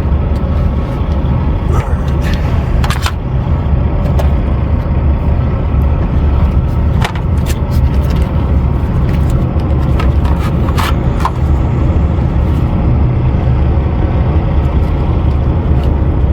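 Steady low rumble of an idling diesel engine, with a few short sharp clinks and scrapes of hand tools against metal.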